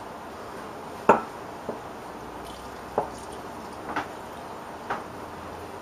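White wine draining from a tipped glass measuring jug into a casserole of chicken and peppers: a handful of small drips and knocks, roughly one a second, the sharpest about a second in.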